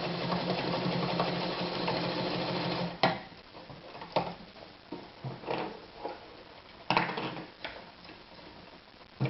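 Anker Phoenix Excelsior ZZ 151 sewing machine stitching at a steady, even speed, stopping abruptly about three seconds in. A few scattered clicks and knocks follow.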